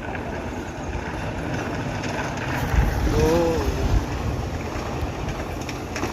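Wind buffeting the microphone: a steady rushing noise with a heavy low rumble, gusting stronger a little past the middle. A brief rising-then-falling tone sounds once, about three seconds in.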